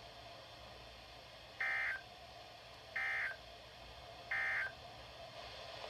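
Emergency Alert System end-of-message code sent over a radio broadcast: three short, identical bursts of buzzing data tones, each about a third of a second, about a second and a half apart. The bursts signal that the alert has ended.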